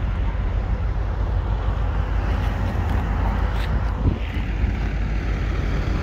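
Road traffic noise: a steady low rumble.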